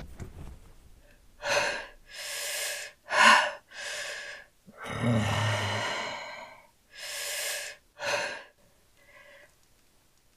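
A woman's aroused gasps and heavy breaths, a string of short sharp intakes and exhales, with a longer voiced moan about five seconds in. The breathing fades to a faint breath near the end.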